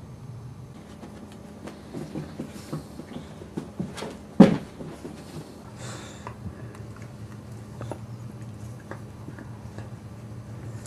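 Adult boxer and boxer puppy play-wrestling on the floor: scattered soft knocks and scuffles, with one sharp thump about four seconds in, over a steady low hum.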